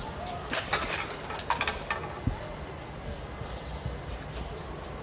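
Brief rustling of cloth and kit from about half a second to two seconds in, then a single soft thump, over a steady low background hum.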